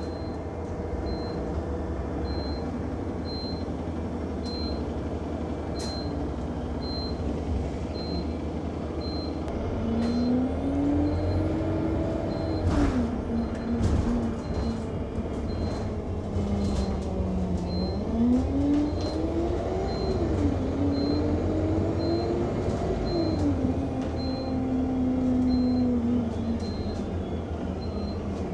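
Inside an Alexander Dennis Enviro200 MMC single-deck bus: a short, high-pitched beep repeating about once a second without stopping, over the bus engine, whose note rises and falls as the bus speeds up and slows, with a few knocks and rattles.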